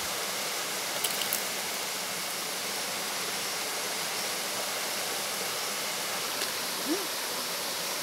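Steady rush of a small forest waterfall and the stream water around it, with a few faint clicks about a second in.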